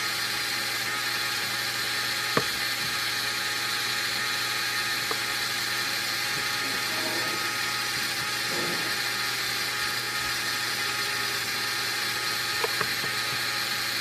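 Lego Technic gear train with two differentials, driven by an electric motor: a steady whir of the motor and meshing plastic gears, with an occasional faint click.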